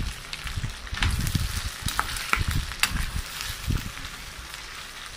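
Pork and onions sizzling in an enamel frying pan, a steady hiss with crackling pops, while a spoon stirs and knocks against the pan about twice a second until about four seconds in.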